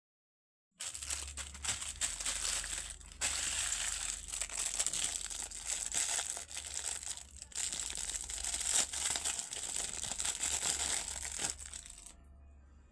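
Packaging being crinkled, crumpled and torn open by hand, a dense run of crackling that starts about a second in and stops near the end.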